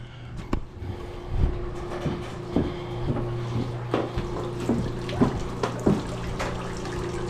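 Boat lift motor humming steadily as it raises a boat onto its bunks, starting about a second in, with scattered knocks.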